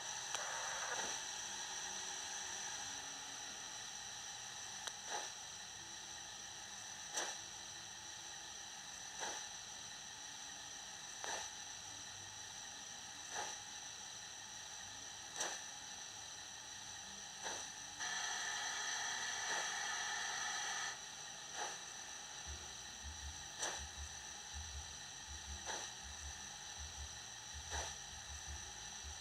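Sound decoder of an OO-gauge model GWR 61xx-class 2-6-2 tank locomotive (Zimo decoder with a YouChoos steam sound file) playing slow exhaust chuffs, about one every two seconds, over a steady hiss from its small speaker. A louder burst of steam hiss runs for about three seconds past the middle, and a low pulsing rumble comes in near the end.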